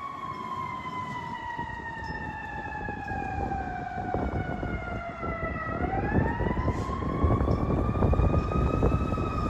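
Fire truck siren gliding slowly down in pitch for about six seconds, then winding back up, over the low rumble of the truck's engine and road noise, which grows louder in the second half.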